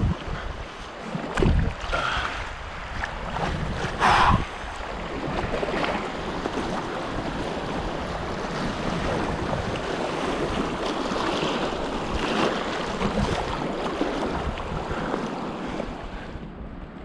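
River water rushing and splashing in a steady wash, with wind on the microphone and two short loud bumps, one about a second and a half in and one about four seconds in.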